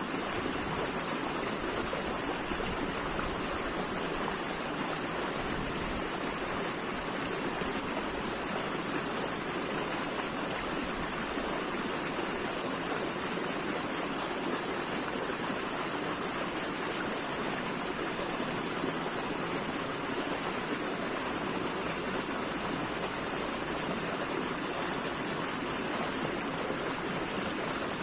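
Flowing water running steadily and evenly, with a constant high hiss over it and no changes.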